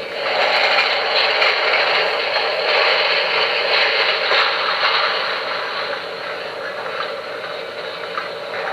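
QSI Maxx Traxx sound unit playing its diesel locomotive engine sound through a small fixed speaker: a steady, tinny engine noise with little bass, easing slightly about halfway through.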